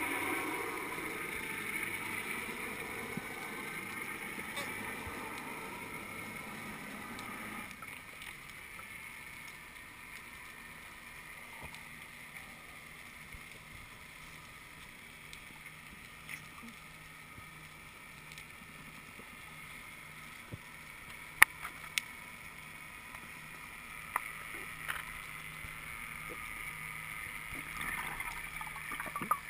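Underwater ambience picked up by a submerged camera: a steady rushing hiss of water, louder for the first eight seconds, over a faint low hum, with a few sharp clicks about two-thirds of the way through.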